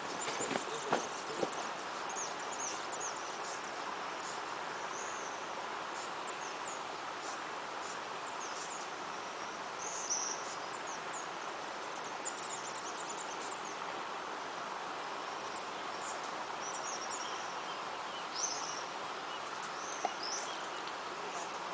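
Outdoor ambience: a steady hiss of background noise with many short, high bird chirps throughout, and a few knocks in the first second or two.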